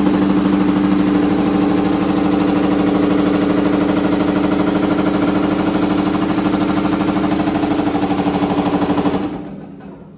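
Baileigh PH-28HD power hammer running, its ram striking a sheet-metal panel in a fast, even rhythm of blows as large beads are hammered into it. About nine seconds in the hammer winds down and the sound dies away.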